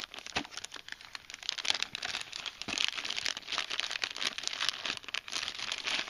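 Clear plastic zip-top storage bag and the plastic packets inside it crinkling and crackling continuously as they are handled and turned over.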